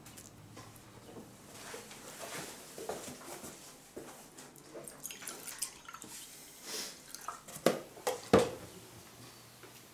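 Breakfast-table clatter: crockery and cutlery knocks and clinks, light rustling and milk being poured. A few sharp knocks come late on, the last one the loudest.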